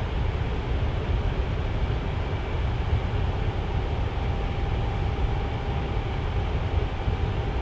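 Tower fan running steadily: a constant rush of air with a faint motor hum.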